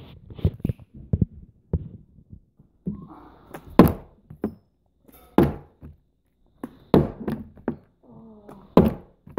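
Plastic water bottle being flipped and thudding down onto a table again and again: four loud thunks, one every one and a half to two seconds, after a few lighter knocks at the start.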